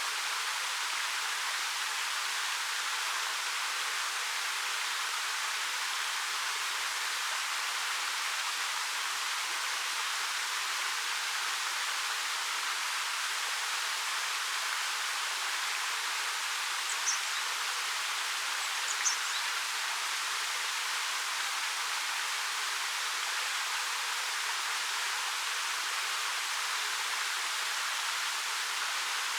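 Waterfall of about 13 m falling over rock: a steady, unbroken rush of water, bright and hissy with little low rumble. Two brief high chirps sound about halfway through.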